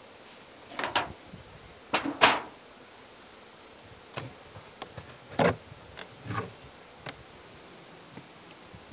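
Beehive being opened: the sheet-metal-covered roof and then the wooden inner cover are lifted off, giving a series of short knocks and scrapes, the loudest about two seconds in, while honeybees buzz.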